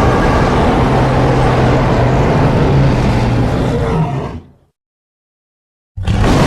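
Pitched-down kaiju monster roar sound effect: a long, rough, noisy roar over a low steady tone, fading out about four and a half seconds in. After a second of dead silence another roar starts abruptly near the end.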